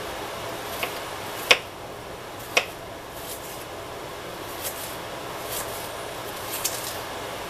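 Kitchen knife chopping vegetables on a wooden cutting board: a few irregular knocks of the blade on the board, the two loudest about a second apart near the start and softer ones later, over a steady room hiss.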